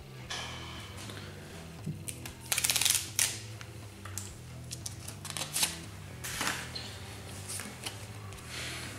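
Trading cards being handled on a table: a quick run of clicking, like cards flicked through, about two and a half seconds in, then a few separate card snaps and slides. Soft background music plays underneath.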